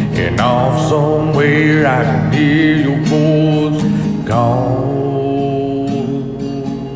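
A slow song: a singer holds long, wavering notes over steady sustained accompaniment, fading down near the end.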